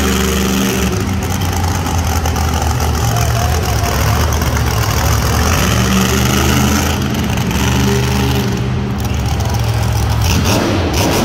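Monster truck engine running loud, revving up and falling back several times as the truck drives and turns on the dirt.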